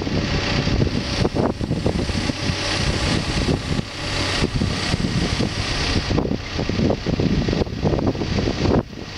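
Backhoe engine running steadily while its controls are worked to cycle hydraulic fluid through the system during the start-up check, with a brief drop in level near the end.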